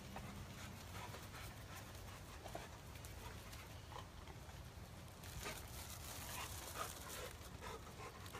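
Rottweiler panting faintly, denser and louder a little past the middle, over a steady low rumble.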